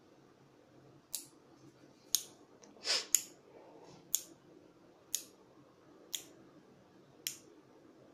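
Blue PCB relays on an Arduino eight-relay board clicking shut one after another, seven sharp clicks about one second apart. This is the relays switching eight AC bulbs on in sequence under an 'all on' command with a programmed one-second delay.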